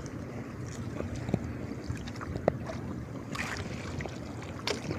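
Wind on the microphone and waves lapping against a small boat, with a few sharp clicks.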